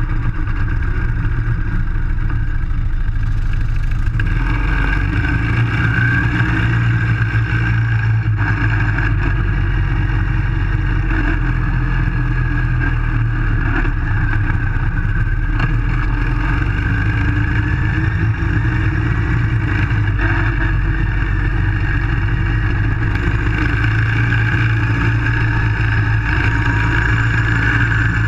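Baja SAE off-road car's single-cylinder Briggs & Stratton engine running hard, heard onboard the moving car. A steady drone with a whine that rises and falls a little with speed, filling out about four seconds in.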